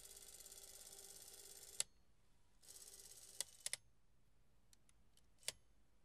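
Paillard Bolex cine camera's spring-wound clockwork motor running with a steady whir that stops with a sharp click near two seconds in. A second short run stops with a click about three and a half seconds in, followed by a few light clicks and ticks of the release and controls.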